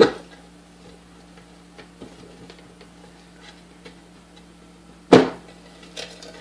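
Small metallic clicks and ticks as the field coil of a vintage KitchenAid Model 3B mixer motor is worked loose from its housing by hand, with two sharper knocks, one at the start and one about five seconds in.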